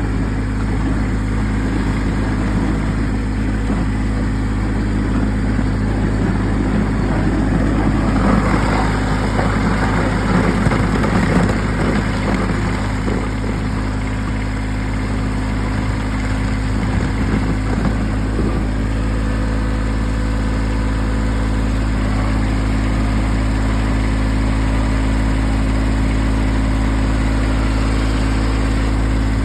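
Kubota BX1800 compact tractor's three-cylinder diesel engine running steadily, with a rougher, noisier stretch about eight to twelve seconds in.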